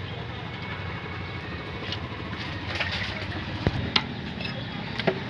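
A few sharp knocks of a heavy cleaver striking a wooden stump chopping block while cutting a chicken, three in the second half, over a steady low hum.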